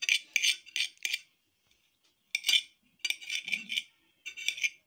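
Knife chopping boiled egg whites on a ceramic plate: quick, repeated clicks of the blade hitting the plate. The chopping pauses about a second in and then resumes.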